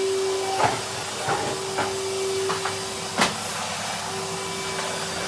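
Vacuum cleaner running, a steady whine over a rushing hiss, with several short knocks and clicks, the loudest a little past three seconds in.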